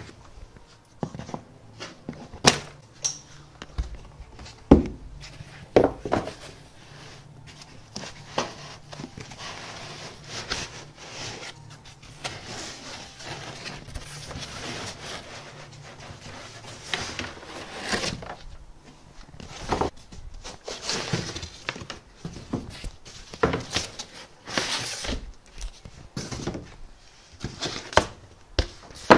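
Cardboard box and packing foam being unpacked by hand: rustling and scraping of foam and cardboard, with scattered knocks and thumps as pieces are lifted out and set down.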